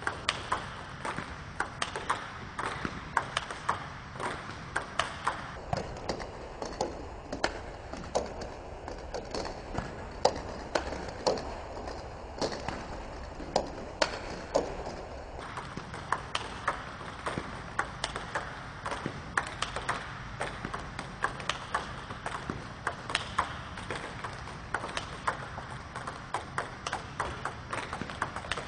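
Table tennis balls clicking in a quick, steady run: backspin balls fed one after another bounce on the table and crack off the bat as the player hits backhand topspin strokes, about two clicks a second.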